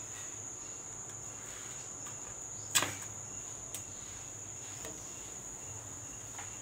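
Quiet handwork with masking tape and a metal scraper against a wooden door frame: one sharp tap about three seconds in and a few fainter clicks after it. A steady high-pitched whine runs underneath.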